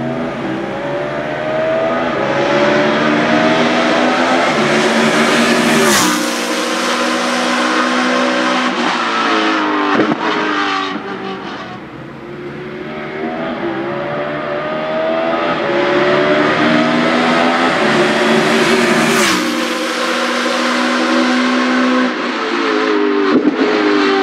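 BMW Z4 GT3 race car's V8 engine at full throttle, its note climbing in pitch as it accelerates hard. Twice the pitch then falls away as the car passes and draws off, and the sound fades briefly before the next run.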